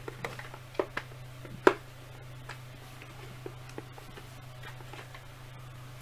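Plastic Red Ranger helmet knocking and clicking as it is worked down over a head and adjusted by hand: a few sharp clicks in the first two seconds, the loudest near two seconds in, then a few fainter ticks, over a steady low hum.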